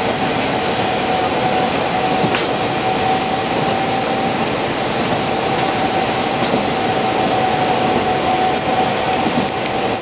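Cabin running sound of a KiHa 40 diesel railcar with its N-DMF13HZI diesel engine: a steady rumble and rush of the car under way, with a steady high whine over it. A few sharp clicks come through, the clearest about two and a half seconds in.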